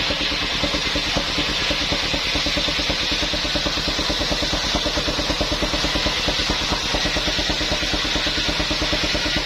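Engine-driven circular saw machine running steadily, its engine pulsing at an even rapid rate under a steady high hiss.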